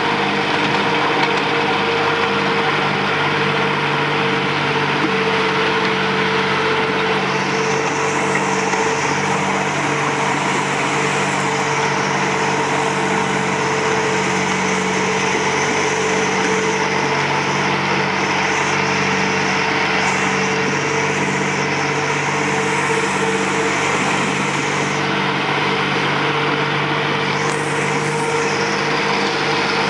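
Small engine of a 7¼ inch gauge miniature GP40 locomotive running steadily as the train travels along, with a steady hum. A higher hiss comes and goes from about eight seconds in.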